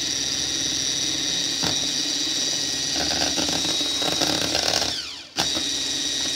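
Electric hand mixer beating thin liquid cake batter: a steady motor whir with a high whine as the beaters churn. About five seconds in the sound winds down and drops out briefly, then runs again.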